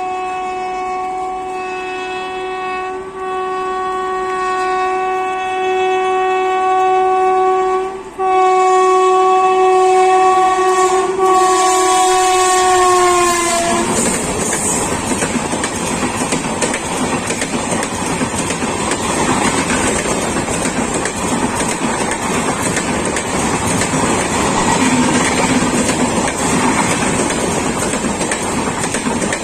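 WAP-7 electric locomotive's air horn sounding one long, loud blast for about thirteen seconds, with a few brief breaks, dropping slightly in pitch as the locomotive goes by; it is sounded as a warning to people crossing the track. Then the passenger coaches rush past with steady wheel clatter on the rails.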